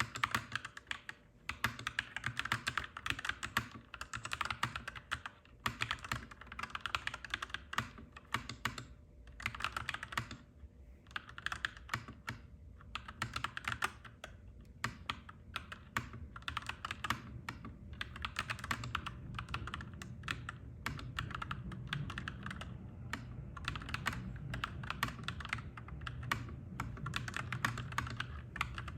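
Fast typing on a clacky mechanical keyboard, dense runs of keystrokes broken by a few short pauses. A low rumble grows louder through the second half.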